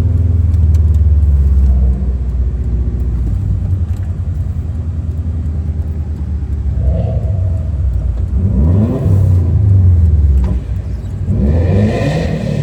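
Subaru WRX's turbocharged flat-four engine running steadily, then revving up twice, about eight and eleven seconds in, as the car accelerates.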